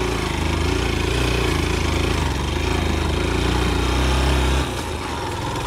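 Single-cylinder motorcycle engine running under way, a steady low drone that drops suddenly about four and a half seconds in as the throttle is eased off.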